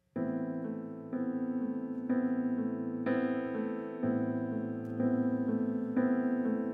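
Keyboard playing a slow instrumental intro to a song: sustained chords, a new one struck about once a second.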